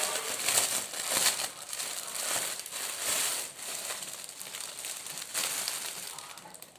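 Parcel packaging crinkling and rustling in irregular handfuls as it is opened by hand.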